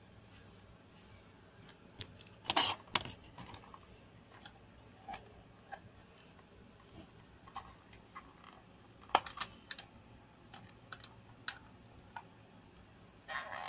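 Scattered taps and clicks of fingers handling a smartphone in a glittery case, with short rustles about two and a half seconds in and again near the end.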